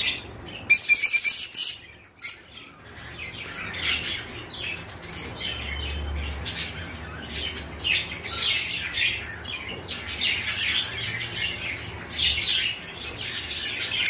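A cage of rosy-faced (peach-faced) lovebirds chattering: many rapid, high chirps overlapping, sparse for the first two seconds and then dense and busy.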